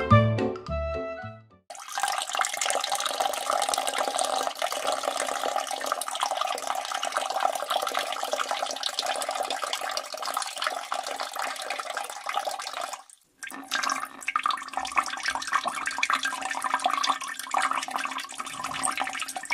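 Steady rush of running or pouring water, cutting out briefly about two-thirds of the way through and then starting again. A few notes of music end just before it begins.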